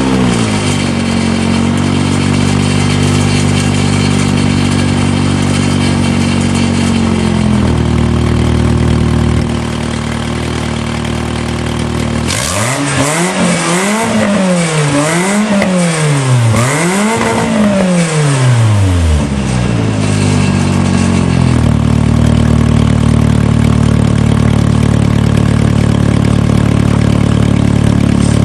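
Nissan 200SX car engine under way: it climbs in pitch as it pulls away, then runs at a steady drone. Between about 12 and 19 seconds in it is revved up and down four times in quick succession, then settles back to a steady drone.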